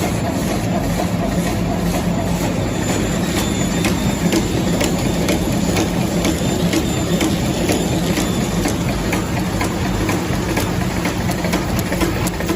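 Tissue-and-cutlery packing machine running: a steady mechanical hum with a regular, even clicking from its moving parts as it cycles.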